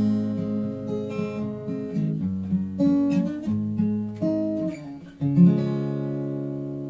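Acoustic guitar playing the closing bars of a song, with plucked notes and strums. About five seconds in it lands on a final strummed chord that rings on and slowly fades.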